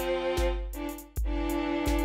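Background music: sustained chords over a deep pulse that comes about every three-quarters of a second.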